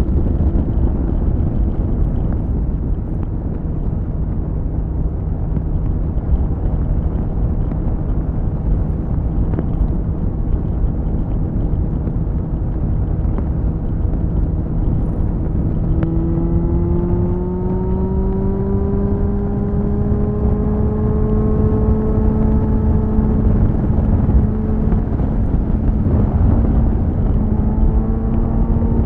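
2001 Suzuki GSF600 Bandit's inline-four engine through a BOS slip-on exhaust, heard onboard: it holds steady revs for about the first half, then the revs climb slowly and steadily as the bike pulls, over a constant rush of wind noise.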